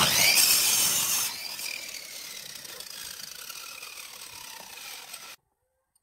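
Compound miter saw cutting through a small pine block: a loud burst of sawing for about a second, then the blade's whine falls slowly in pitch as the motor spins down. The sound cuts off suddenly near the end.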